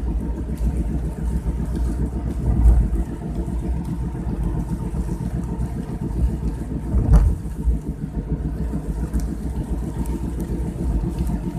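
Car driving, a steady low rumble of engine and road noise, with one short knock about seven seconds in.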